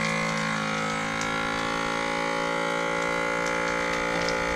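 Ziploc vacuum sealer's pump motor running with a steady hum as it draws the air out of a bag of raw chicken.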